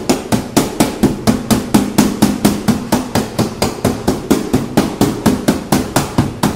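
Rapid, evenly spaced metal taps on a Maruti Suzuki Ciaz's sheet-steel door panel, about four to five a second, as a dent is knocked out by hand.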